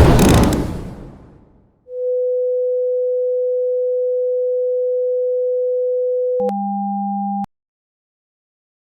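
A loud crashing, shattering noise dies away over the first two seconds. Then a steady electronic sine tone holds for about four and a half seconds, switches to a shorter two-tone sound with a higher note over a low buzz for about a second, and cuts off suddenly.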